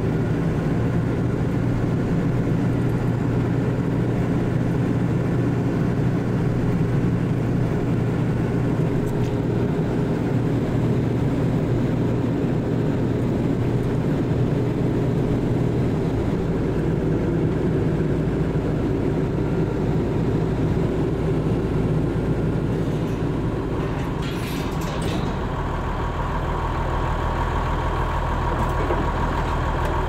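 Farm tractor engine running steadily, heard from inside the cab. Near the end the engine note drops lower and a faint whine comes in.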